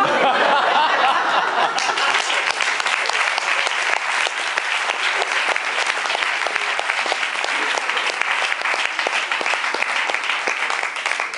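Theatre audience applauding, a dense crackle of many hands clapping that breaks out all at once and thins out near the end.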